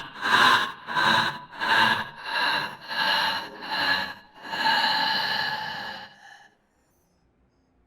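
Macabre horror-film laugh: slow, evenly spaced 'ha' pulses, about one and a half a second, ending in one long drawn-out final note that fades out about six seconds in, followed by silence.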